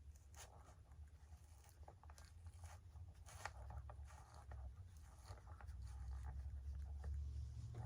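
Faint handling noises of hands working on a foam model airplane: scattered small clicks and crackles over a steady low hum.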